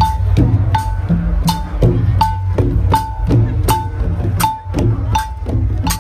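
Cambodian chhayam procession music: long-bodied chhayam drums beaten by hand under a small hand-held gong struck on a steady beat about every three-quarters of a second. Each gong stroke rings briefly, and sharp clicks fall between the strokes.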